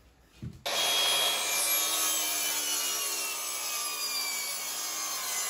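A saw cutting, starting suddenly about half a second in and running steadily with no separate strokes, with faint tones sliding slowly downward.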